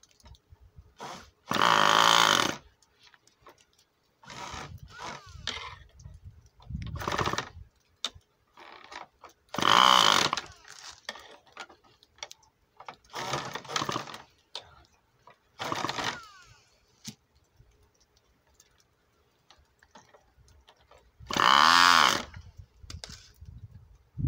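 Handheld electric starter spinning a Cox .15 Medallion model glow engine in about seven short bursts a few seconds apart, the engine not catching. The loudest bursts come about two seconds in, near the middle and near the end.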